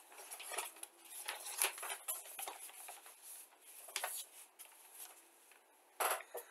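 Handling noise from a plastic model kit: scattered soft rustles and light clicks, with a louder rustle about six seconds in.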